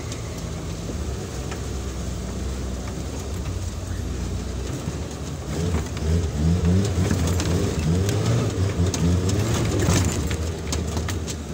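Off-road 4x4's engine running as it crawls over a rough trail. It works harder from about five and a half seconds in, with the revs rising and falling. Scattered knocks come near the end.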